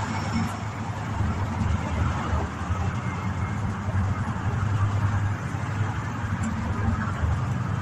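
Street traffic: a steady noise of cars on a busy town street, with a low rumble.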